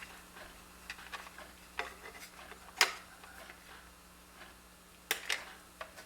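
Wire cutters snipping through an old appliance power cord: scattered small clicks of the tool and cord being handled, with one sharp snap a little before the halfway point and a few more clicks near the end.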